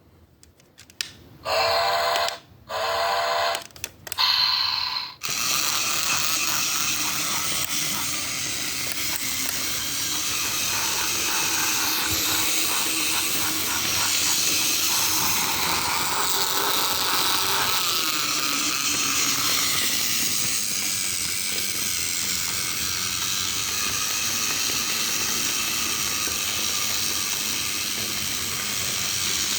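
Plarail D51 toy steam locomotive's sound unit playing a few short whistle blasts, then a steady hissing steam-engine sound through its small speaker over the whir of its small motor. The sound runs unsynchronised with the chuffing, which the owner puts down to the Mr. Motorman controller overriding the sound function on its highest setting.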